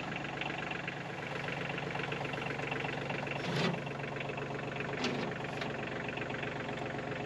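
Compact tractor engine idling steadily, with two short metallic clanks about three and a half and five seconds in as the chain-hung log tongs are handled.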